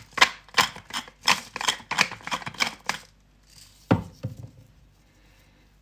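Hand-twisted pepper mill grinding black peppercorns over the meat: a quick run of about a dozen short gritty crunches that stops about three seconds in. About four seconds in come two soft thuds as a hand pats and rubs the seasoning into the pork.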